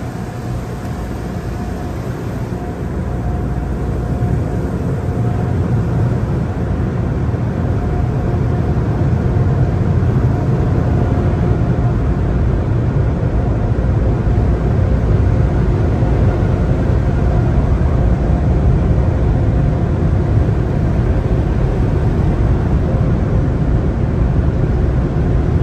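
Automatic tunnel car wash machinery heard from inside the car's cabin: a loud, steady, low rushing drone that builds over the first few seconds and then holds.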